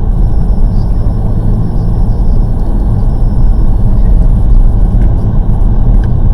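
Steady low rumble of a Volkswagen Golf R driving on snow-covered roads, heard from inside the cabin: engine and winter-tyre road noise.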